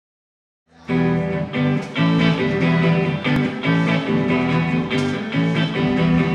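Electric guitar playing a riff on its own, starting about a second in after silence: the opening of a live rock song, with notes changing in a repeating pattern.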